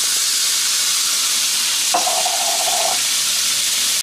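Canned green beans sizzling and hissing as they hit a hot cast iron skillet with oil in it, a steady frying noise. About two seconds in, a brief high tone sounds over it for about a second.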